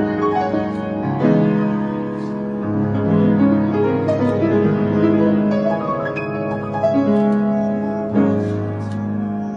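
Piano music: slow sustained chords over a steady bass line.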